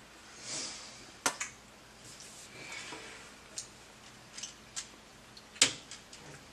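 Sparse light clicks and taps of a small plastic game spinner being handled and flicked on a tabletop, with a sharp click about a second in and the loudest near the end.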